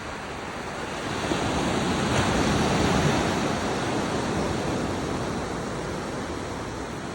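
Ocean surf: a wave swells, breaks about two seconds in, then washes out slowly.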